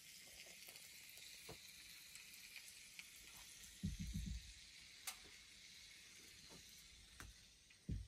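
Slices of Spam frying faintly in a cast iron skillet: a steady sizzle with scattered small pops. There are a few low thumps around four seconds in and again just before the end.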